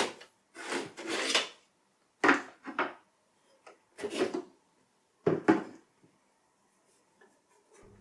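Apple Mac Pro 1,1 metal hard-drive sleds being slid out of their bays one after another: several short sliding scrapes and rubs, with the last couple of seconds quiet.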